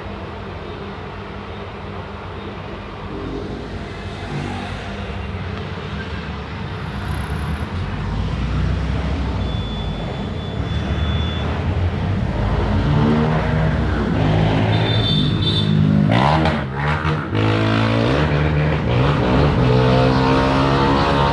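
Volkswagen 9-160 OD minibus diesel engine pulling away and accelerating. The engine note climbs in pitch and drops back twice in the second half as the gears are changed, getting louder throughout.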